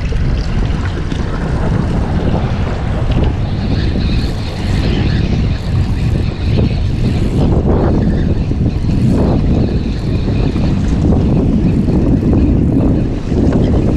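Strong wind buffeting the microphone aboard a small boat, over the boat's motor running as a steady low rumble.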